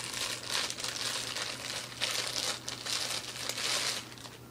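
Packaging crinkling and rustling in several bursts as a battery charger is unwrapped, stopping shortly before the end.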